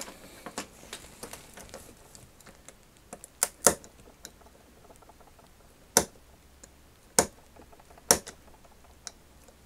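Small sharp clicks and ticks of a craft knife blade picking and prying at hardened superglue in a plastic action figure's wrist joint, a handful at uneven intervals.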